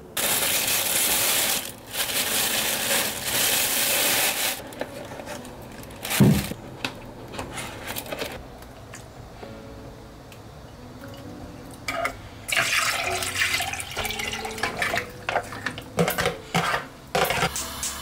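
Kitchen handling of a delivered seafood hot pot: stretches of loud rushing noise, like liquid or plastic, a dull thump about six seconds in, then scattered clicks and clatter.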